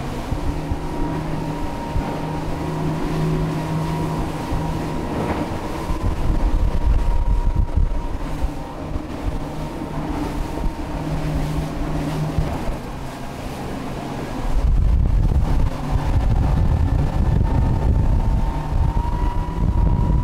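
Motorboat with outboard power running at speed, a steady engine hum and whine over rushing water and wind. About three-quarters of the way through the rumble and rush get louder and heavier.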